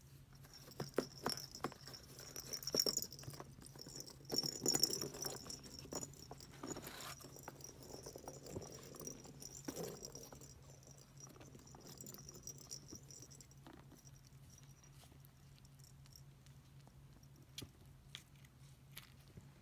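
Cats pawing and scrabbling at a round cardboard scratcher toy, with the ball trapped inside it rolling and rattling: irregular taps, scratches and knocks, busiest through the first ten seconds or so, then dropping to occasional ticks.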